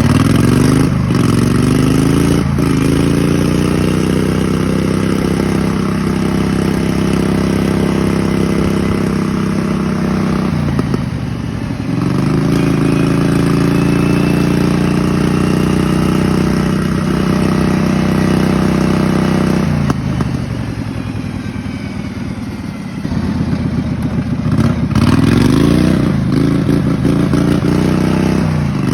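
Kohler Command V-twin engine of a racing lawn mower running hard: the pitch climbs as it accelerates, holds steady, then drops briefly about ten seconds in and again around twenty seconds before revving back up.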